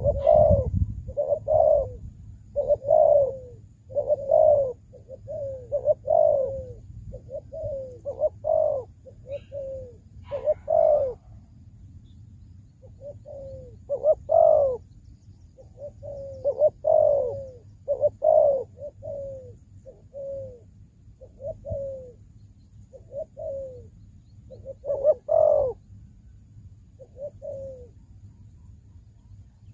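Spotted dove cooing: short coos about a second apart, repeated in runs, with a brief pause near the middle.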